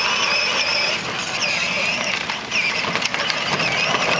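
Electric motor and gearbox of a battery-powered ride-on toy jeep whining as it drives. The high whine wavers in pitch and breaks up briefly partway through.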